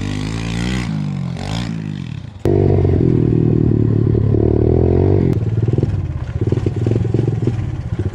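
Kawasaki KLX110 pit bike's small single-cylinder four-stroke engine running under way. Its pitch rises and falls at first, then it turns suddenly louder and steady about two and a half seconds in. From about five seconds on it drops to a lower, pulsing beat as the bike slows.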